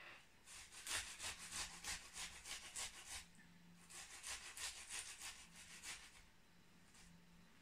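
Beetroot being grated on a metal box grater: quiet rasping strokes, about three a second, in two runs with a short pause between.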